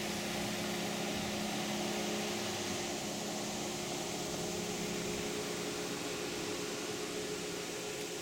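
A truck engine idling steadily nearby: a low hum with a few steady tones, the lowest of which fades out about halfway through.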